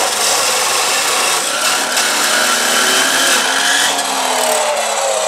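A 2HP 14-inch abrasive cut-off saw running and grinding through an old aluminium tube-and-fin intercooler core, a loud steady shriek whose motor pitch sags slightly near the end as the blade is pushed through the cut.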